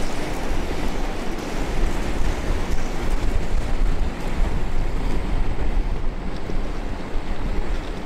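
Loud, steady wind noise buffeting the microphone, heaviest in the low end, from an inline skater moving at speed.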